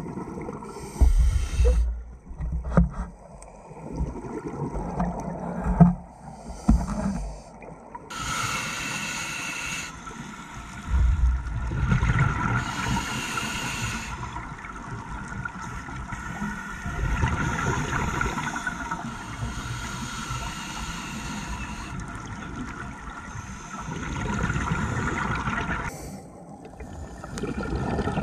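Scuba diver breathing through a regulator underwater: hissing inhales alternating with low bubbling exhales every few seconds. A steady high hum sounds from about eight seconds in until near the end.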